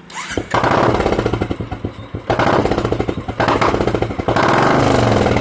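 Royal Enfield Classic's single-cylinder engine revved hard through an aftermarket Indori silencer with its rear flap closed, in four throttle surges with brief dips between them, each a rapid, loud exhaust thumping.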